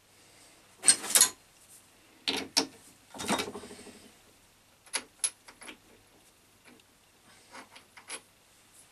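Metal clattering and clinking as steel tools and a workpiece are handled, with no machine running. Three louder rattling clatters come in the first few seconds, then lighter ringing clicks and taps.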